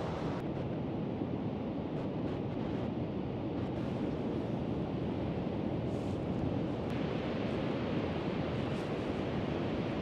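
Pacific surf breaking steadily on a sandy beach: a continuous low rushing of waves, with wind on the microphone.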